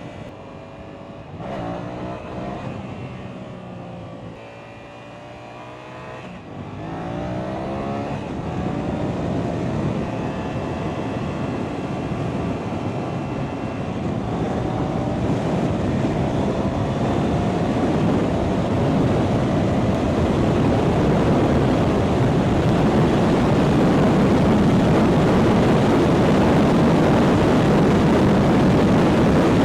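2015 Yamaha FZ-07's parallel-twin engine on its stock exhaust, accelerating through the gears: its pitch climbs, drops at each shift and climbs again. Wind noise on the microphone grows louder as speed builds.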